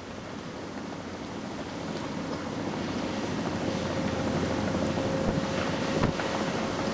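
Tracked excavator's diesel engine running steadily under wind noise on the microphone, fading in from quiet, with a couple of sharp knocks near the end.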